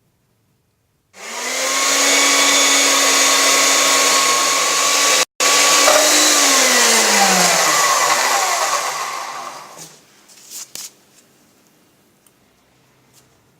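A high-speed electric power tool motor starts about a second in and runs at a steady pitch with a loud hiss, broken for an instant near the middle. It then winds down, its pitch falling, and stops, followed by a few light clicks.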